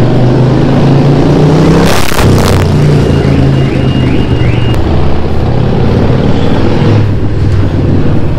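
Harley-Davidson Forty-Eight's 1200 cc air-cooled V-twin with a free-flow exhaust, running steadily at low speed, its note rising and falling a little. A brief rush of noise about two seconds in.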